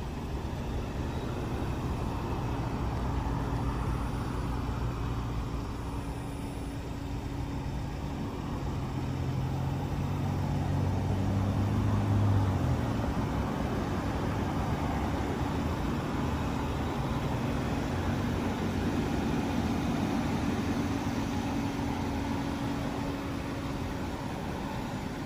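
Motor-vehicle engine and traffic noise in the open air. A low engine drone rises in steps and cuts off about twelve seconds in, while a steadier engine hum carries on until near the end.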